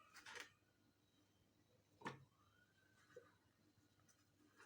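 Near silence, with a couple of faint short knocks about a quarter second in and about two seconds in.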